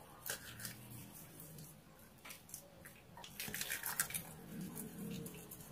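Faint wet squishing of soap lather as hands rub it over the face, with a few small soft clicks.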